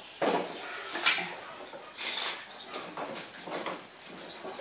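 Metal jump-lead clamps clinking and rattling as they are handled and clipped onto a ride-on mower's battery terminals: a handful of separate clicks and scrapes.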